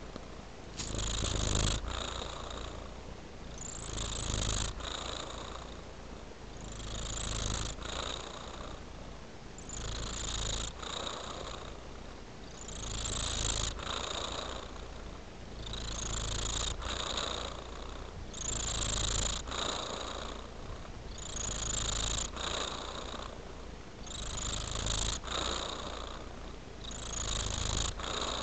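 Tabby-and-white domestic cat purring continuously, the purr swelling and easing with each breath about every two and a half to three seconds.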